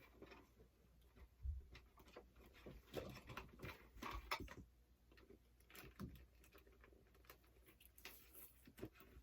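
Near silence with scattered faint clicks, taps and rustles of handling, with a few louder knocks about a second and a half in and around three and four seconds in.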